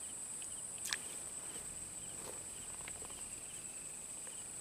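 Insects trilling in the swamp vegetation: a steady high-pitched buzz, with a fainter short chirp repeating about two to three times a second. One short click about a second in.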